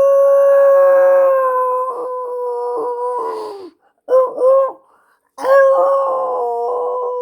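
A man imitating a wolf howl with his voice, pitched high: one long steady howl that drops off near the middle, two short rising yips, then a second long howl that slowly sinks in pitch.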